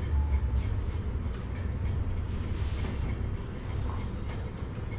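Steady low rumble of classroom background noise, with faint scattered clicks and rustles.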